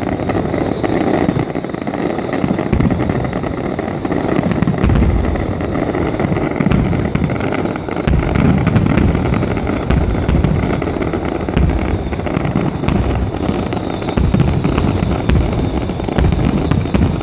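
Fireworks finale barrage: aerial shells bursting one on top of another, loud booms and crackling overlapping without a pause.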